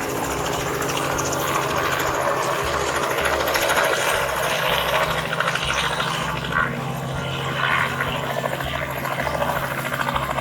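Helicopter running steadily, its engine and rotor making a continuous hum with a regular low chopping pulse.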